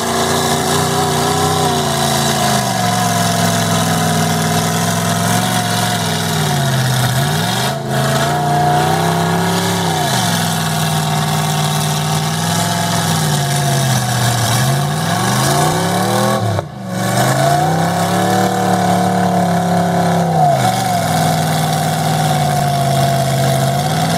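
Lifted Dodge Ram mud truck's engine, exhausting through hood stacks, revving up and down over and over under load as it churns through a deep mud pit. The sound dips briefly twice, about a third and two thirds of the way through.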